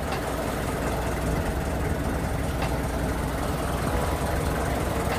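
Engine of a motorized outrigger passenger boat (bangka) running steadily at low speed, a deep, even rumble.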